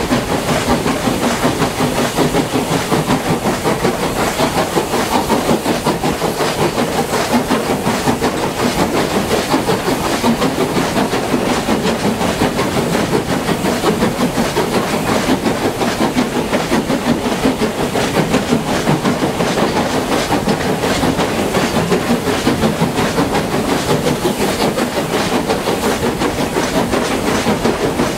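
Steam tank locomotive working up a gradient, heard from beside its cab: a steady run of quick, regular exhaust beats with the clatter of the wheels on the rails.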